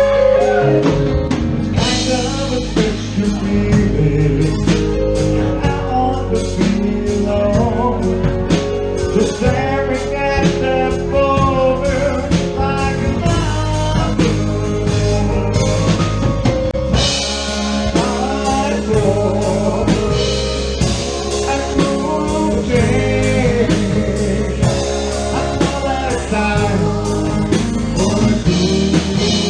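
Live rock band playing a soft-rock song, with drum kit, guitar and a singing voice.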